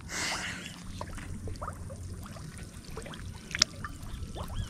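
Water pouring and splashing in a brief rush at the start, then trickling more lightly, with a few short high chirps over it.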